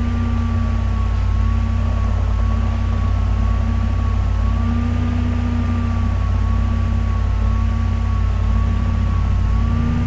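Steady low hum with a thin, high whine that wavers slowly in pitch.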